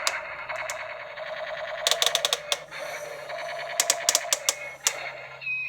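Electronic gunfire sound effects from a toy tank: a fast stuttering machine-gun rattle, broken by two volleys of sharp cracks about two and four seconds in, then a steady high tone near the end.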